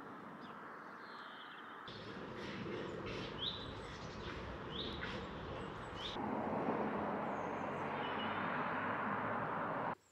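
Outdoor ambience: a steady rushing background with a small bird giving a few short, rising chirps in the middle. The background changes abruptly twice where separate recordings are cut together.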